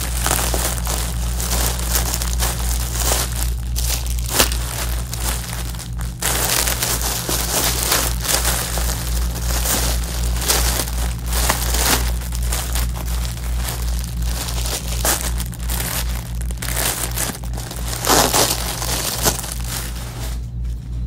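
Clear plastic garment bags crinkling and rustling almost without pause as packaged clothes are handled and unwrapped, with many small sharp crackles. A steady low hum runs underneath.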